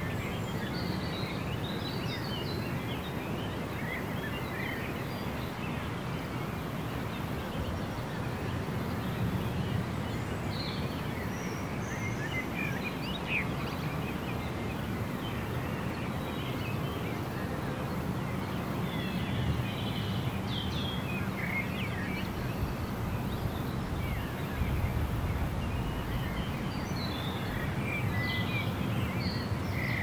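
Birds chirping and singing on and off, several short calls at a time, over a steady low background rumble.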